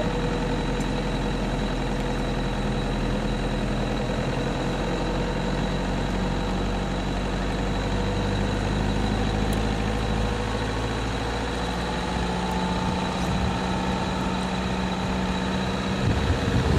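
Vehicle engine idling steadily, with a thin steady high tone above it; it grows louder right at the end.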